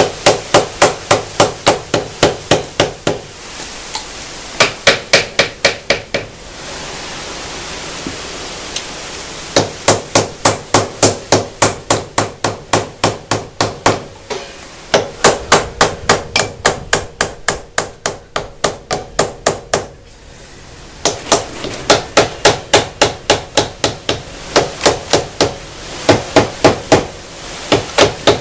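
Rubber mallet tapping repeatedly on the engine side cover of a 2007 Honda ANF125 Innova, about four quick strikes a second in runs of a few seconds with short pauses. The cover is stuck tight with its bolts already out, and the taps are meant to break it free.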